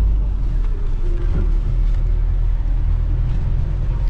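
City bus in motion heard from inside the passenger cabin: a steady low engine and road rumble.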